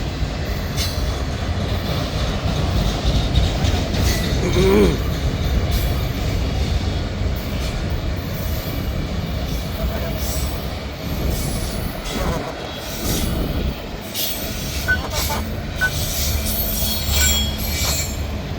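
Freight train running, led by a GE AC4400CW locomotive: a steady low rumble of engine and wheels on rail, with a few short high wheel squeals in the last few seconds. No horn sounds.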